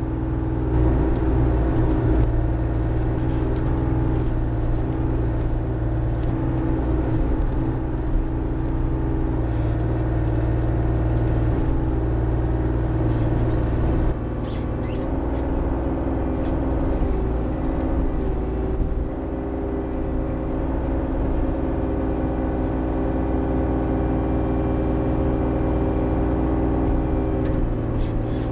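Bobcat E35i mini excavator's diesel engine running steadily under working load, heard from the operator's seat, with a few short knocks and clanks as the bucket digs and dumps dirt.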